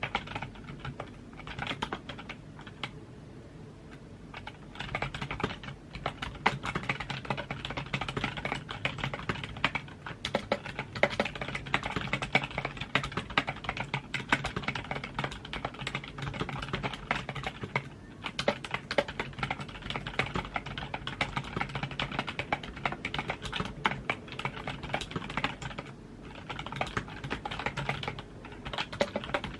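Computer keyboard being typed on, fast and continuous key clicks with brief pauses: one of about three seconds near the start and short ones about two-thirds of the way through and near the end.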